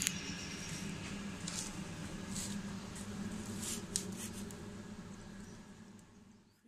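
A cat eating wet food from a plastic bowl: faint wet chewing and licking clicks over a low steady hum, fading out near the end.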